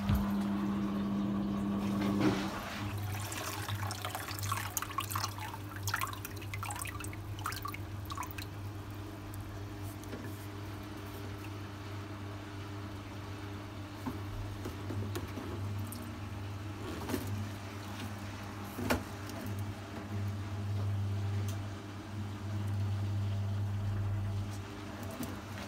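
Arçelik 4120 S washing machine running its drum-cleaning cycle: a steady electric hum with water running through it. A higher hum gives way to a lower one about two seconds in, and a few clicks and knocks come through in the first several seconds.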